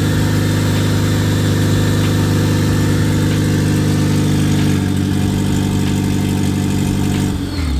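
Supercharged Honda K-series four-cylinder in a Civic Si, running on its first start after the build, open header with no exhaust fitted. It idles steadily, dips slightly about five seconds in, then winds down and stops near the end.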